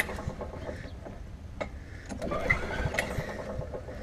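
A Craftsman 6.0 hp push mower's single-cylinder engine being pull-started and turning over unevenly without catching, with the choke still off.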